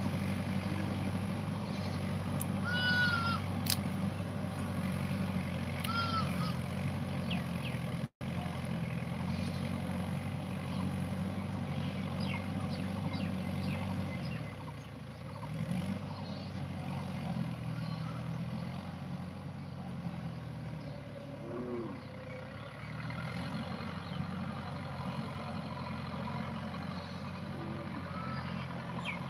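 Mahindra tractor's diesel engine working a field with a cultivator, heard at a distance as a steady low drone. About halfway through, the drone drops and wavers.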